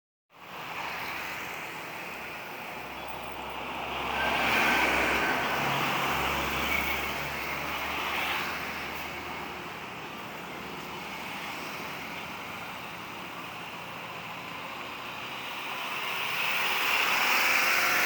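Road traffic noise with motor vehicles passing close by: one swells up and fades away about four to eight seconds in with a low engine hum, and another builds near the end.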